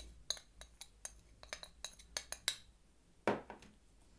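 A spoon clinking and tapping against a bowl as spoonfuls of starch are added: a run of light clinks, then one stronger knock about three seconds in.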